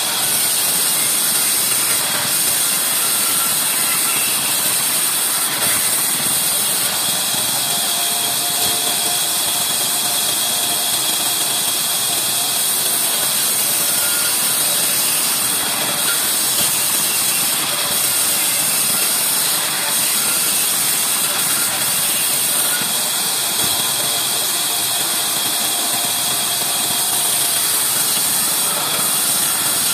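Large wheel band saw running steadily while ripping along an old reclaimed wooden plank, a continuous loud machine noise strongest in the high end.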